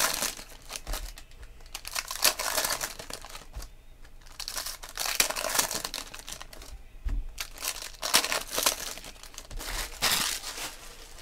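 Foil wrapper of a 2016 Panini Prizm Football jumbo trading-card pack crinkling as it is handled and opened. The crinkling comes in several short bursts a couple of seconds apart.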